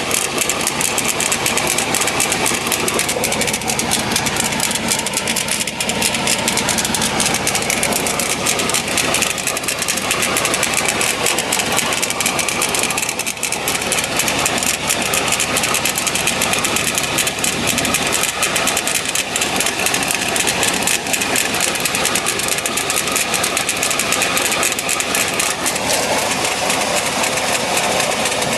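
Chevrolet Tahoe running with a steady, rapid mechanical clatter throughout, an abnormal noise that the owner puts down to the transmission.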